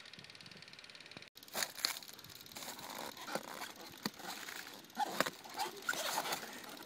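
Large cabbage leaves rustling and crackling as a child pushes through them, a quick irregular run of crisp rustles and snaps starting about a second in.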